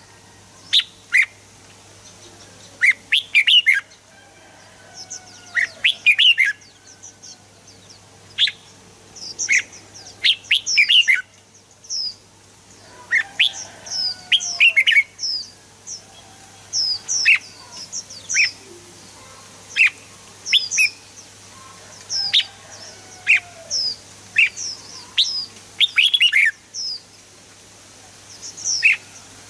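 Red-whiskered bulbul singing, short bright chirping phrases of quick whistled notes repeated every second or two with brief pauses between them.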